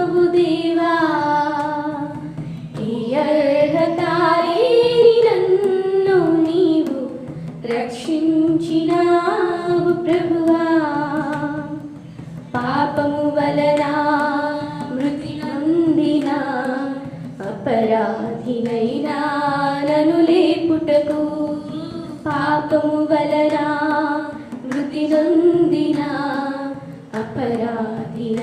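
A group of young women singing a Telugu Christian devotional song about the crucifixion together, in long held phrases with short pauses for breath between lines.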